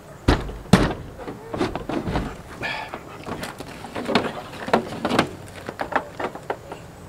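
A series of knocks and thumps, two loud ones within the first second, then many smaller knocks.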